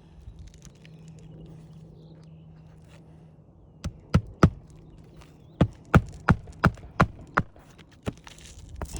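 A series of sharp hammer blows on an asphalt shingle roof while shingles and their nails are being worked loose: three quick strikes about four seconds in, then a steady run of about six at roughly three a second, then two more.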